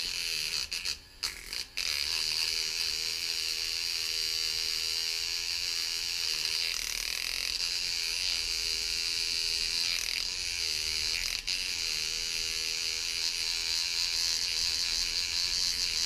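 Headless beard trimmer motor buzzing steadily against a screwgate carabiner, rattling the metal, after a few knocks in the first couple of seconds. The vibration is slowly unwinding the carabiner's locking sleeve until the gate opens.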